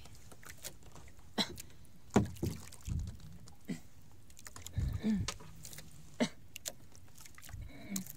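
Water lapping against a small outrigger fishing boat's hull, with scattered knocks and a few low thumps.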